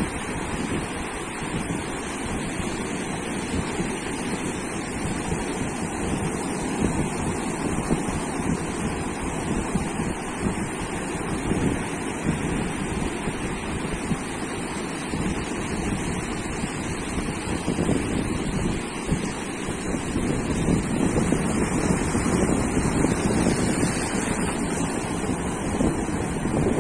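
Ocean surf breaking and washing continuously on a sandy beach, with wind buffeting the microphone.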